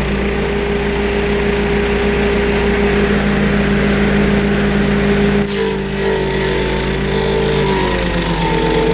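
Stump grinder's engine running hard while the machine grinds a stump. About five and a half seconds in the engine note dips and then wavers in pitch as the cutter takes load.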